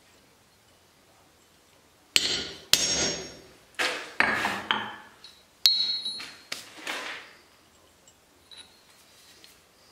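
Blacksmith's hammer striking a hand-held tool set on a wrought iron workpiece on the anvil. About seven sharp, ringing metal strikes come at uneven intervals, starting about two seconds in and stopping after about seven seconds.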